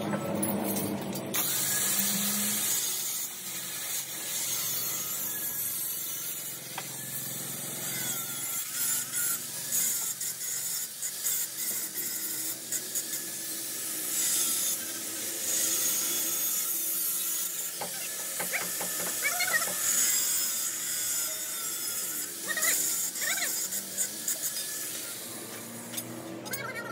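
Electric angle grinder with a thin cut-off disc cutting stainless steel square tubing: a hissing, high-pitched grinding noise, with short clicks and clinks of the steel tubes being handled.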